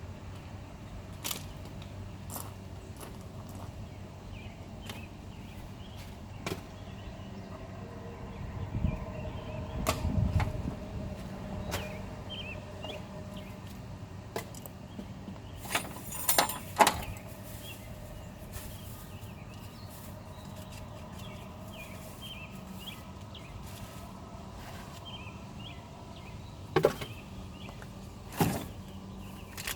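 Scattered knocks, clatter and thuds of junk being handled and cleared out of a car, over a steady low hum. There is a run of heavier thuds about ten seconds in, and the sharpest knocks come near the middle and twice near the end.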